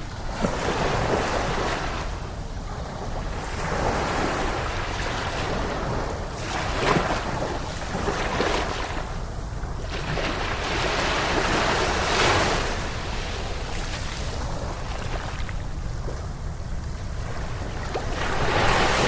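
Ocean waves washing onto a beach. The surf rises and falls in swells every few seconds, over a steady low rumble of wind on the microphone.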